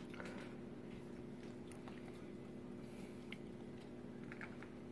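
A small dog eating dry kibble from a stainless steel bowl: faint, scattered crunches and clicks over a steady low hum.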